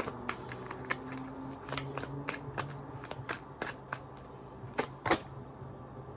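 Tarot cards being shuffled by hand: a quick, irregular run of crisp card clicks and flicks, several a second, over a faint low hum.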